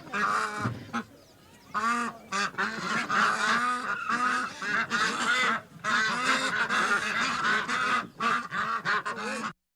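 A flock of ducks and geese calling excitedly, honks and quacks overlapping. There is a short lull about a second in, and the calls cut off suddenly near the end.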